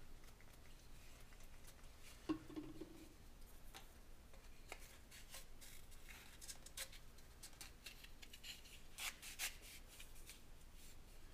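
Faint handling sounds of a paper motor tube and centering rings being turned and pressed together by hand: light rubs and small clicks, with a sharper click and a brief squeak about two seconds in.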